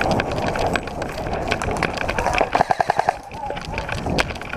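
Running footsteps through dry leaf litter with a rushing noise of movement on the microphone, then about halfway through a short rapid burst of airsoft gunfire, roughly seven quick shots in half a second. A single sharp crack follows near the end.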